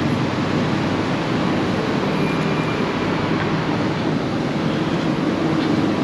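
Steady urban background noise: a constant low rumble of traffic with a faint hum, no single event standing out.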